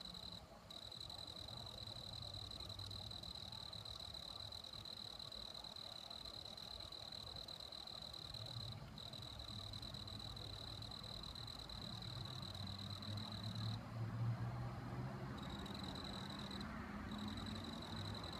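Cricket trilling: one steady, high, continuous trill that breaks off briefly a few times, over a faint low rumble.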